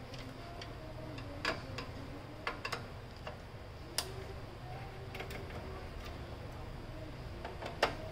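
Irregular sharp clicks and taps of a screwdriver and fingers against the plastic and metal chassis of an HP LaserJet Pro M26 printer being taken apart, with the loudest click near the end.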